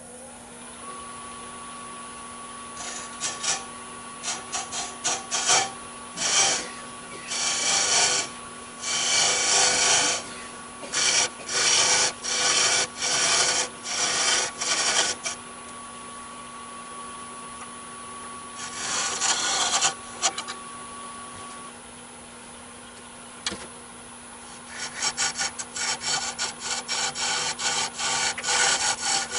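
Hollowing tool cutting into spinning olive wood on a wood lathe: a series of short scraping cuts over the lathe's steady hum, coming in quick succession near the end.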